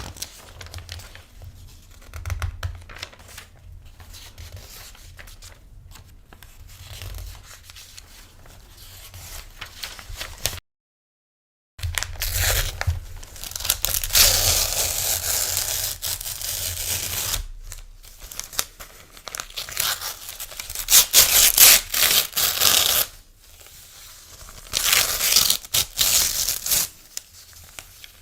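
Paper being torn in a series of ripping strokes. The rips are softer and scattered in the first ten seconds. After a second of dead silence they come louder and longer, with the loudest rips about two-thirds of the way through.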